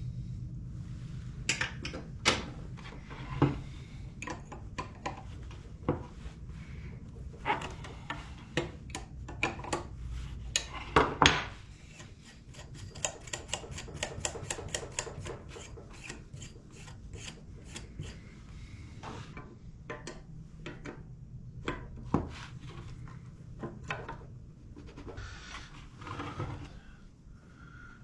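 Hand tools and metal parts being handled while a trials bike's rear suspension is worked on: scattered knocks and clinks, with a run of quick, evenly spaced clicks around the middle, over a steady low hum.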